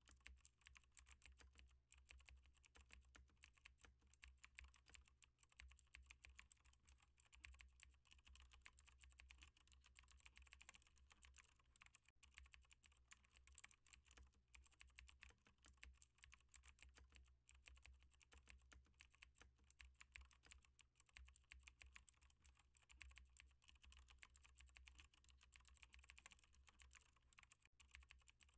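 Computer keyboard typing: a faint, continuous run of fast keystrokes over a steady low hum.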